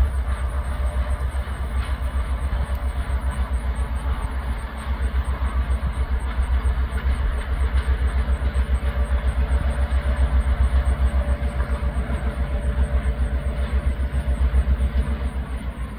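Diesel locomotive engine running with a steady, fast low throb, close by.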